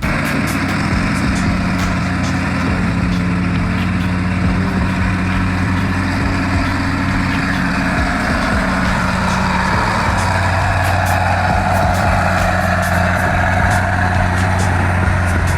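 Heavy engines of an old log truck and a bulldozer running steadily, a deep, even engine note that holds through the whole stretch.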